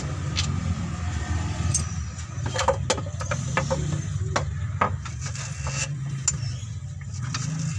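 Mitsubishi Canter 125 truck's diesel engine running steadily at idle, with scattered sharp metallic clicks and clinks of hands and tools working on the engine's fuel lines.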